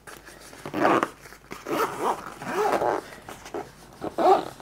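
Zipper on a HotLogic soft-sided food-warming bag being pulled closed around the bag in several pulls, mixed with some pitched, voice-like sounds.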